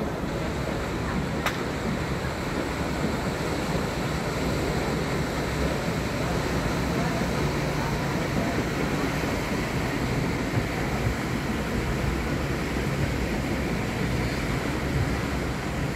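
Steady rushing of wind and lake water, with the low churn of the side-wheel paddle steamer Schiller passing close by underneath. A single sharp click about a second and a half in.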